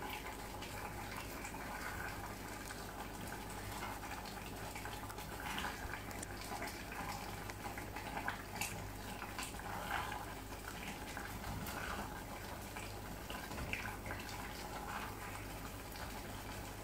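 Thick pasta e patate simmering in a copper pot while a wooden spoon stirs it, with scattered soft plops and scrapes over a steady low hum.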